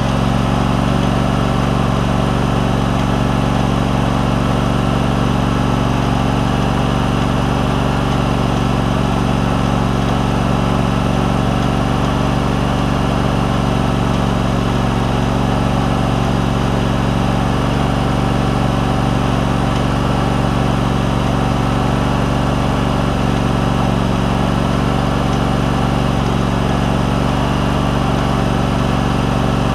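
John Deere LX188 lawn tractor's Kawasaki engine running steadily, unbelievably quiet, running again after its fuel pump, fuel line and tank grommet were replaced.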